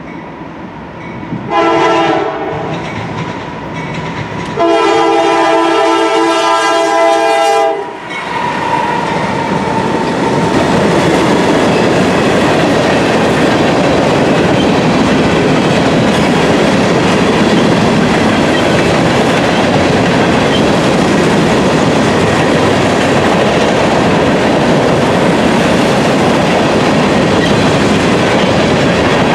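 Horn of a Norfolk Southern GE AC44C6M diesel-electric locomotive sounding two blasts, a short one and then a longer one of about three seconds, dropping in pitch as it passes. It is followed by the steady loud rumble of the loaded grain cars rolling by, with wheels clattering over rail joints.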